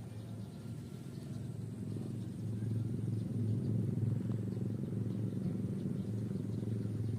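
A steady low, engine-like drone that grows louder about two and a half seconds in and then holds.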